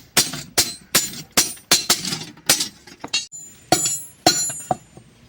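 Hammer blows on metal during the repair of a hand cart, a quick series of about three strikes a second, then a short pause and a few more strikes that ring on near the end.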